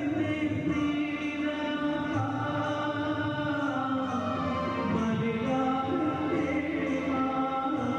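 A church choir sings a slow hymn in held notes, backed by an organ, during the giving of First Holy Communion.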